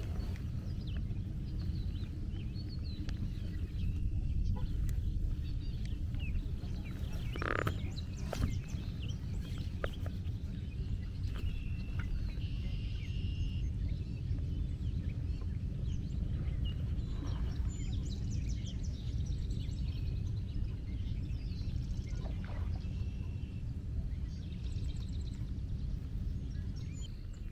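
Outdoor ambience: a low steady rumble with scattered short bird calls, and a single knock about seven and a half seconds in.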